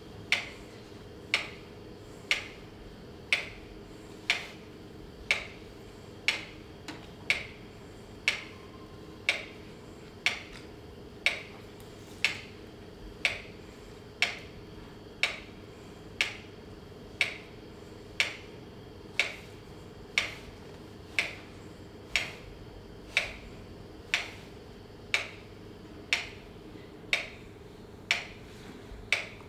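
Steady, even ticking, one sharp click about every second, over a constant low hum.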